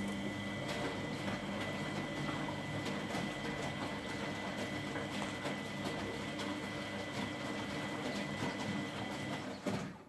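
Miele front-loading washing machine turning its drum in the wash cycle: the motor runs with a steady whine while wet laundry sloshes and knocks in the drum. The motor stops shortly before the end.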